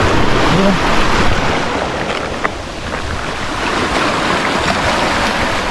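Small waves breaking and washing up over a pebble beach, a steady surf hiss.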